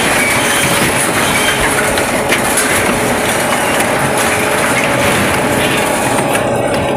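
Twin-shaft scrap metal shredder's low-speed blade rotors tearing and crushing scrap sheet steel: a loud, continuous metallic grinding with many quick clanks.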